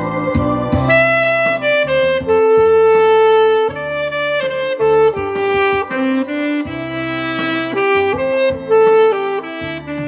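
Alto saxophone playing a slow melody of long held notes over a backing accompaniment with a bass line.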